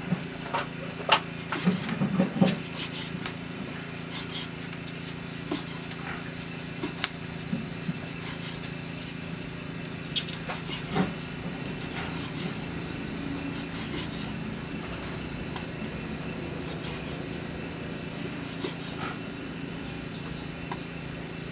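Kitchen knife slicing raw pork on a wooden chopping block: scattered taps of the blade against the wood with soft cutting and rubbing sounds, busiest in the first few seconds and sparser after.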